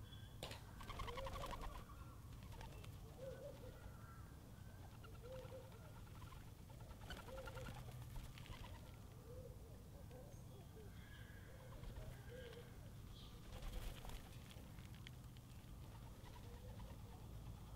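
Doves cooing softly, low notes repeated every second or so, with faint chirps of small birds. A few short rustles stand out, loudest about a second in and again near the end.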